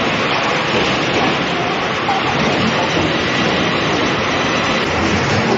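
Log debarking line running: the infeed conveyor and debarker make a loud, steady mechanical noise with no clear rhythm.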